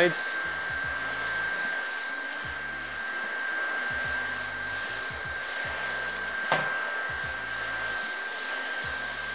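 Handheld hot-air heat gun blowing steadily, an even rush of air with a steady high whine, warming freshly applied epoxy on a surfboard rail so it sinks deeper into the wood. A single short click about six and a half seconds in.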